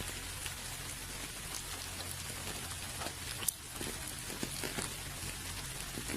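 Steady rainfall, an even hiss with many individual drops heard as small clicks, and one sharper, louder drop about three and a half seconds in.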